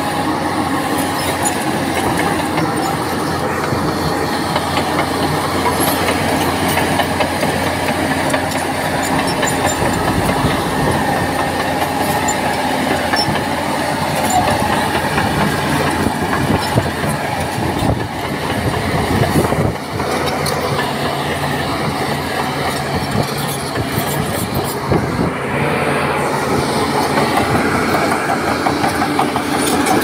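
Crawler bulldozer working: its diesel engine runs steadily under the continuous metallic clatter of its steel tracks.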